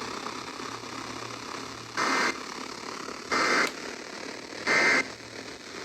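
Emergency Alert System end-of-message signal: three short bursts of SAME digital data tones, each about a third of a second long and about a second apart, over radio hiss and a low hum. The signal marks the end of the alert message.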